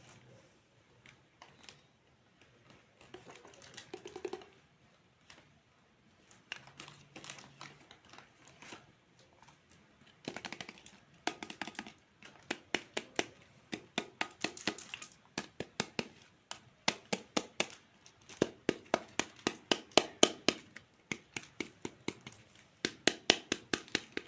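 Plastic toy fruit being handled and cut: quiet rustling and scattered taps at first, then from about ten seconds in a fast run of sharp clicks and taps, several a second, growing louder.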